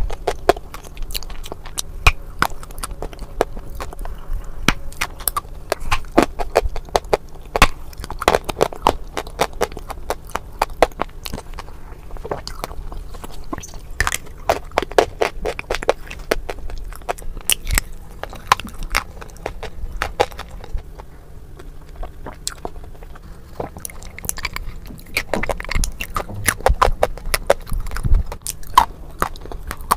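Dry baked clay being bitten and chewed, some pieces coated in a wet paste. Many sharp, irregular cracks and crackles come as pieces snap off and are ground between the teeth.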